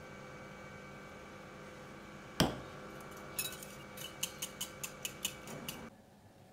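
Metal wire whisk beating egg, milk and molasses in a ceramic bowl: one sharp knock a couple of seconds in, then a quick run of clicks, about five a second, as the whisk strikes the bowl.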